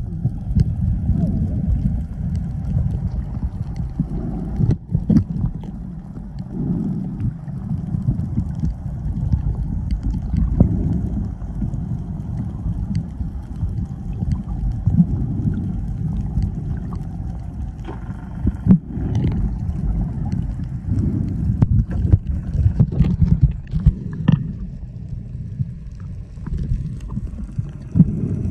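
Muffled water movement heard through a microphone held underwater: an uneven low rumble, with scattered sharp clicks and knocks.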